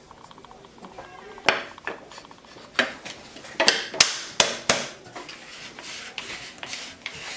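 Workshop handling sounds: a run of sharp, irregular knocks and metallic clinks as tools and small wooden and metal parts are picked up and set down on a bench, bunched in the middle with the loudest about four seconds in.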